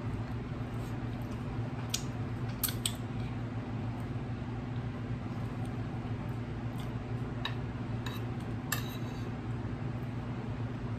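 Close-up eating sounds: a handful of sharp clicks and smacks from chewing and from a metal spoon and fork working at a plate of food, over a steady low hum.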